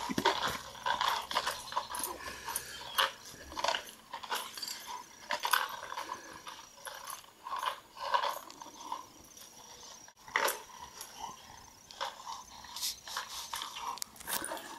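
Rocks rattling and knocking inside a plastic bottle dog toy in irregular clatters as a dog plays with it, with occasional sounds from the dog.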